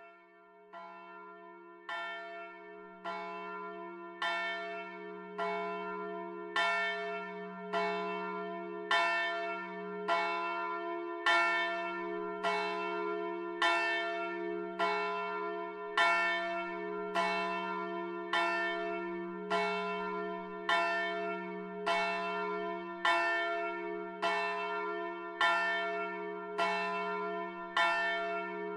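Church bell tolling steadily, about one stroke a second, each stroke ringing on into a sustained hum. It swells in over the first few seconds, then holds an even level.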